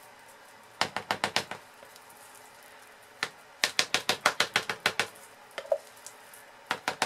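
Silicone spatula scraping and tapping against a plastic container as soap batter is scraped out into the mould. It makes three quick runs of light clicks: about a second in, from about three and a half seconds, and near the end.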